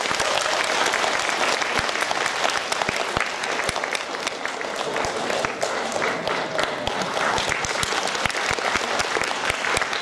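Audience applauding at the end of a stage dance performance: dense, steady clapping.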